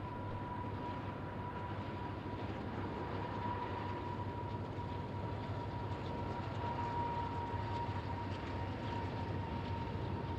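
BNSF freight train rolling by: a steady rumble with a thin, steady high whine over it.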